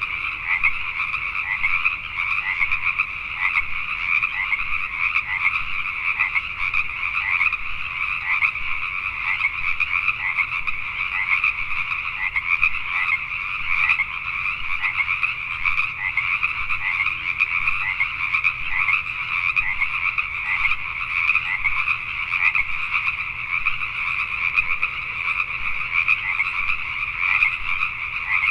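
Chorus of many Pacific tree frogs (Pacific chorus frogs) calling at once, their short croaking calls overlapping into a continuous, unbroken din.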